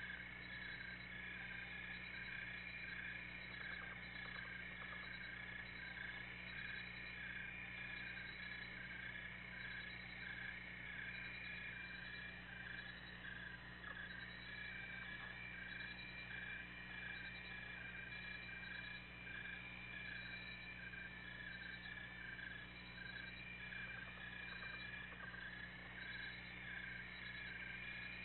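Faint, steady night chorus of calling animals, frogs or insects, with a pulsing call repeating a couple of times a second and a higher steady trill that comes and goes. A low steady hum lies under it.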